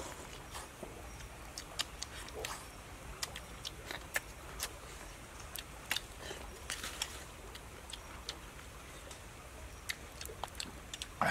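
People eating with their hands: wet chewing and lip-smacking, heard as many sharp clicks at irregular intervals.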